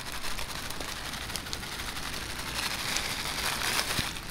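Rain falling steadily, an even patter with scattered sharp drop ticks.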